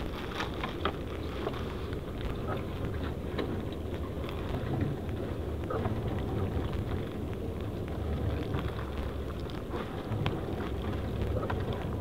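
Nylon monofilament gill net rustling and crackling in gloved hands, with many small sharp clicks, as a spiny lobster is worked free of the mesh. A steady low rumble of wind and boat noise lies under it.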